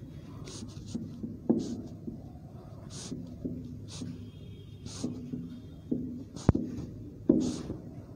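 Marker pen writing on a whiteboard: a run of short, separate strokes, with one sharp tick about six and a half seconds in.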